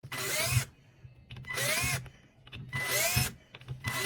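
Cordless impact driver (HiKOKI WH36DA) run free in four short trigger pulls, each under a second. In each the motor whine rises in pitch and then falls away as it spins up and coasts down.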